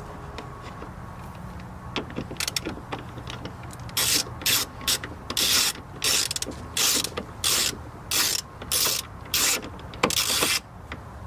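A ratcheting mechanism worked in quick strokes: about ten short, loud rasps in a row over some six seconds, after a few light clicks.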